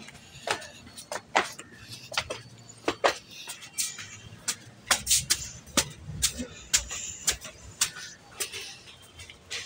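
Footsteps climbing concrete stairs: a string of sharp slaps, about two a second, with cloth rubbing and brushing against the phone's microphone.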